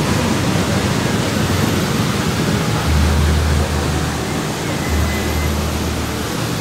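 Spray from a plaza fountain splashing into its basin, heard as a loud, steady rushing hiss, with two low rumbles about three and five seconds in.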